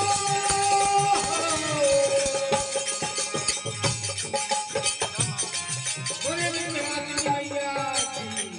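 Live Indian devotional folk song (devi geet): a held, gliding vocal melody over dholak drumming and the steady jingle of small hand cymbals.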